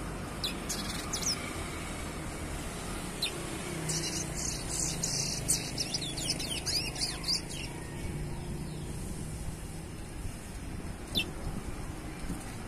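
Young chestnut-bellied seed finch (curió) in juvenile brown plumage singing in a cage: a few scattered short high notes, then a quick run of song from about four seconds in, over a steady low rumble of traffic.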